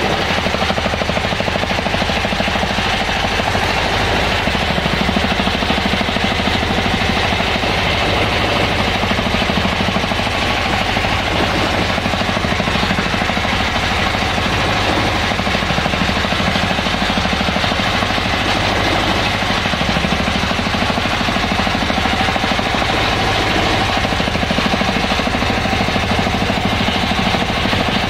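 Engine of a small wooden boat running steadily under way, loud and constant with a fast, even pulsing beat.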